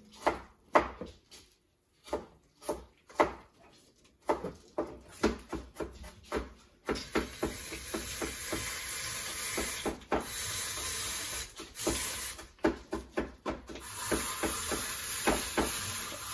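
Kitchen food-prep handling sounds as grated green papaya is squeezed over a pot through a strainer: a run of separate taps, rustles and rubbing, with a steady hiss joining about seven seconds in.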